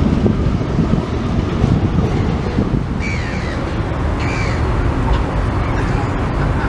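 Steady low rumble from the steam train, with a bird calling twice about three and four and a half seconds in.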